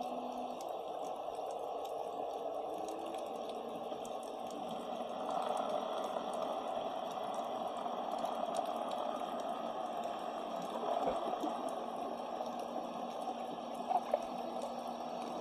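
Underwater ambience picked up by a submerged camera: a steady, muffled rush of water with faint scattered clicks and a low steady hum. There are two brief louder bubbling pops near the end.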